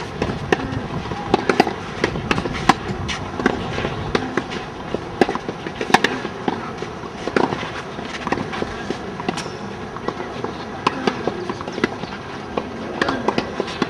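Tennis balls struck by rackets and bouncing on clay courts: irregular sharp pops, one or two a second, from rallies on several courts at once.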